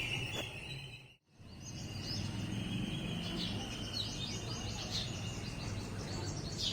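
Sparrows chirping, a busy run of short chirps over a steady low background hum. The sound drops out completely for a moment about a second in, then resumes.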